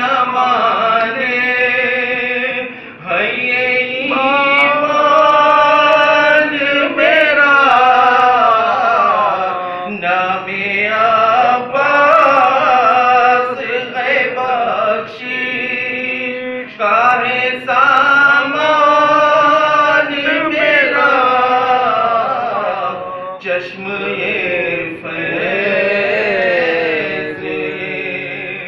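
A man's solo voice chanting an Urdu munajat, a devotional supplication, in long, drawn-out melodic phrases with short breaks for breath every few seconds.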